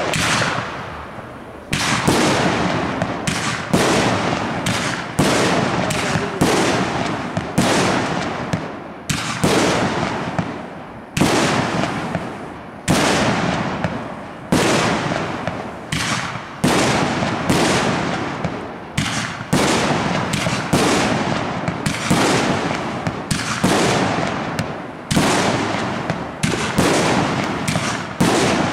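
Aerial firework shells bursting in quick succession, about one loud bang a second, each dying away in a drawn-out echo.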